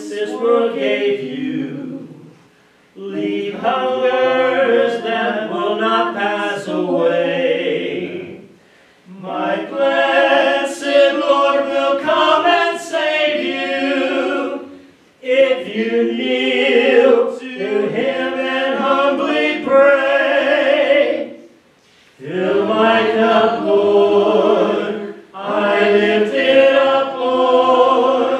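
Congregation singing a hymn a cappella, with no instruments, in sung phrases of several seconds separated by short breath pauses.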